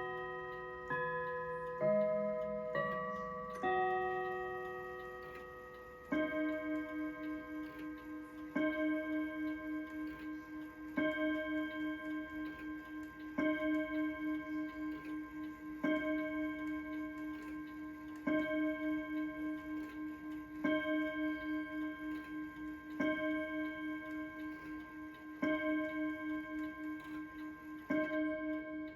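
Ansonia mantel clock chime rods finishing a short tune of different notes, then striking the hour with ten slow, identical strikes about two and a half seconds apart, each ringing on with a wavering decay. The owner suspects something is off with the chime.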